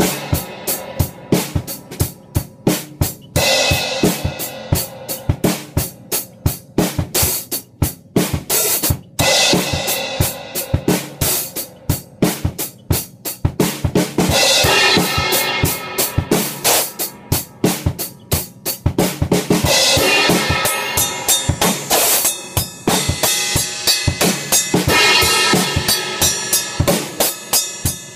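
Acoustic drum kit played in a funk groove: kick, snare and hi-hat strikes in a steady rhythm, with cymbal crashes washing over the beat at several points.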